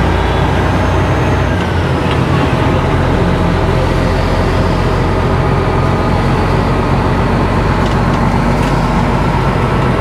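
Tractor-trailer truck driving steadily along a street, heard from inside the cab: a constant low engine drone mixed with road noise.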